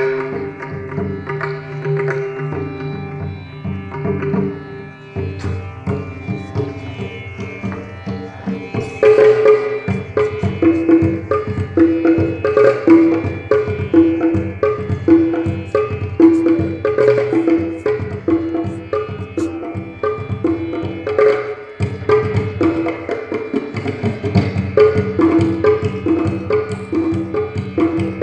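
Tabla played in a fast galloping pattern imitating a horse's hoofbeats. A repeating melodic accompaniment runs underneath, settling into a steady two-note loop about a third of the way in.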